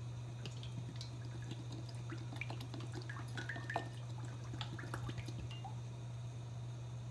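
Cooking oil pouring from a plastic bottle into a cast iron skillet, with small irregular splashes and glugs that thin out near the end. A steady low hum runs underneath.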